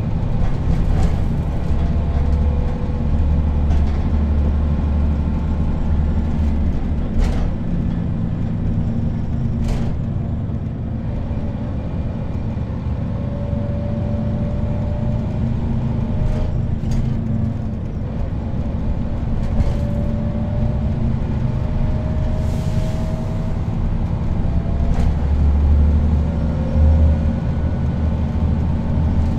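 Inside a moving 1993/94 Neoplan N 4016 bus: the diesel engine runs under way with the whine of its ZF automatic gearbox, which climbs slowly in pitch several times as the bus picks up speed. Occasional short rattles and knocks come from the body.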